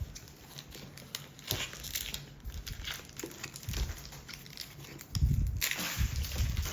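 Foil wrapper of a Pokémon booster pack crinkling as it is handled and torn open, with many small crackles that get louder in the last second and a half.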